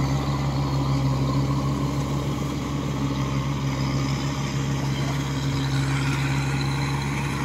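Kubota DC105X rice combine harvester running steadily as it harvests, a constant engine drone with a low hum.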